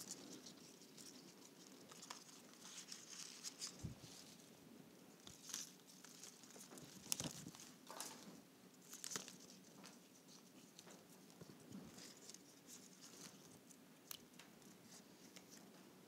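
Faint rustling and crinkling of eucalyptus leaves and stems being handled and laid into a floral arrangement, with a few light clicks and taps scattered through, the sharpest a little past the middle.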